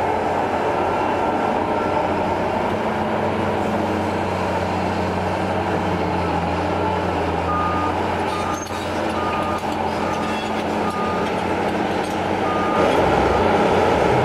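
Liebherr 944C hydraulic excavator's diesel engine running steadily with a low hum. About halfway through, a backup alarm beeps at an even pace, roughly twice a second, for about five seconds. The engine grows louder near the end.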